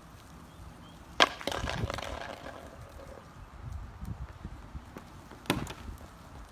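A hard clack about a second in, followed by about a second of rattling clatter, then another sharp knock near the end, with footsteps on pavement between: a frisbee striking the objects set out as targets and knocking them about.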